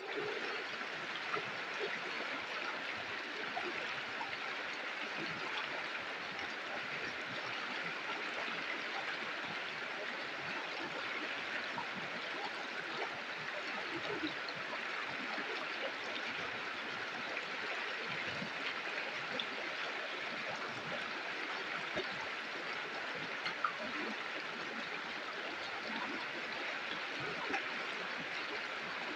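A river or stream flowing steadily over rocks, a constant rushing and gurgling with small splashes here and there.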